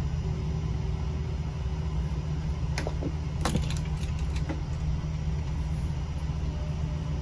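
A steady low hum, with a few light clicks in the middle.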